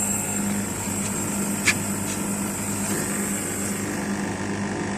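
Panasonic split air conditioner running steadily with a constant hum while it is being charged with refrigerant. There is one short click just under two seconds in.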